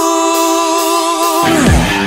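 Mandarin pop-rock song: a singer holds one long, wavering note over thin backing, then the full band with drums and electric guitar comes back in about one and a half seconds in.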